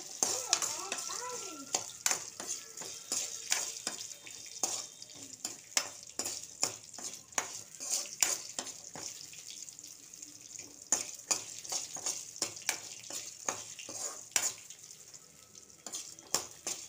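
Dried red chillies and garlic being crushed and ground by hand with a stone on a grinding slab: irregular knocks of stone on stone with gritty scraping between them.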